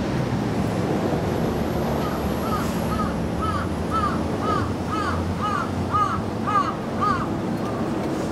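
Crow cawing: a quick series of about a dozen caws, roughly two a second, starting about two seconds in and growing louder before stopping, over steady low background noise.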